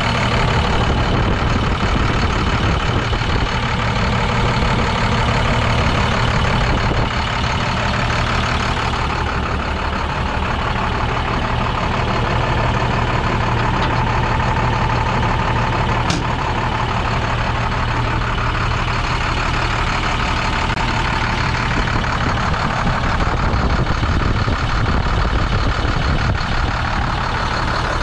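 International DT466 inline-six diesel engine of a 2005 International 4300 truck idling steadily.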